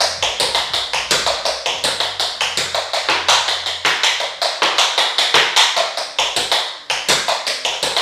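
Metal taps on tap shoes striking a hard floor in a quick, continuous stream of tap-dance steps, several sharp taps a second.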